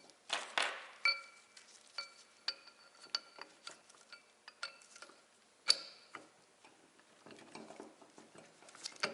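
Steel parts of a mini tire changer clinking and knocking together as they are fitted by hand: a run of separate metal taps, many with a short ringing tone, and one sharper clank a little past halfway.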